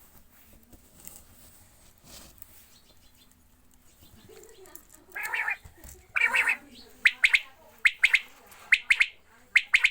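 Quail calling: after a few quiet seconds, two longer calls come about five and six seconds in. They are followed by a run of short, sharp, clipped calls repeating a little more than once a second.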